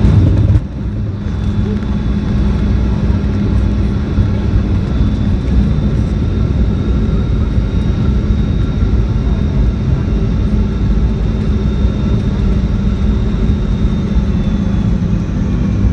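Cabin noise of a Boeing 717-200 heard from a rear seat near its tail-mounted Rolls-Royce BR715 engines: a steady heavy rumble with a low hum and a faint high engine whine, on landing. A louder rush in the first half second cuts off suddenly.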